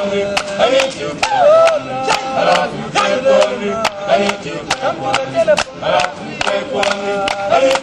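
Male voices singing together as a choir, over sharp strikes in a steady beat of about two a second.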